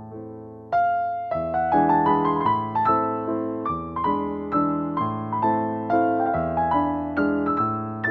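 Background piano music: a gentle melody of struck notes, each fading away, about two a second, growing louder about a second in.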